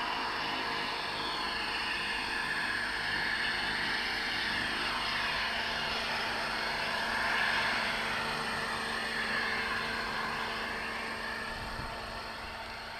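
Electric 600-size radio-controlled helicopter (T-Rex 600E under a scale MD500E body) hovering low and manoeuvring. The rotor whirrs, and the motor and gear whine slides up and down in pitch, growing a little fainter near the end as the helicopter moves off.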